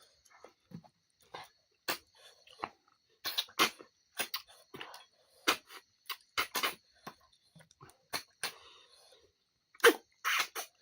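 Cooked snails being sucked out of their shells: short, sharp slurps and clicks coming irregularly, sometimes two or three close together.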